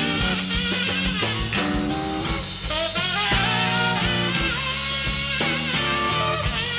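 Live blues band playing an instrumental break of a slow blues: drums, electric bass and guitar backing a saxophone solo.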